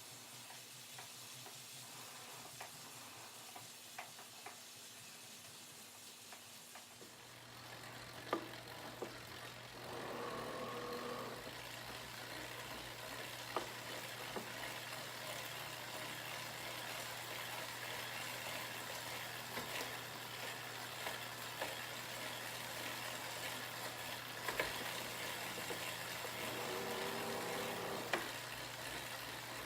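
Scattered clicks, then from about seven seconds in the steady hum and hiss of a Wahoo Kickr smart trainer running as the bike is ridden on it, with two brief higher whines partway through.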